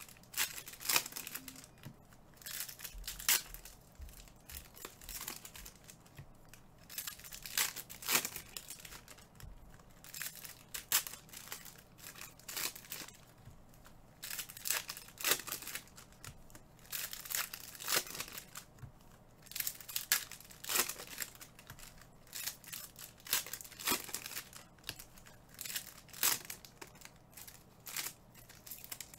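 Crinkling and rustling of plastic packaging being handled, in short irregular bursts.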